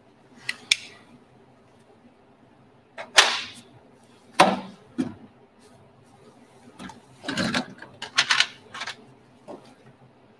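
Irregular workshop handling sounds: short knocks, scrapes and rustles of a plastic jug and small tools being picked up, used and set down, in about half a dozen separate bursts with pauses between.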